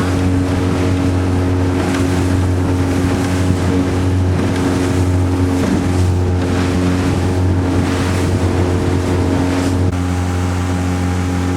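Honda BF20 two-cylinder four-stroke outboard motor running steadily, driving a small aluminium motorboat under way. Rushes of wind and water noise come every second or two over the engine.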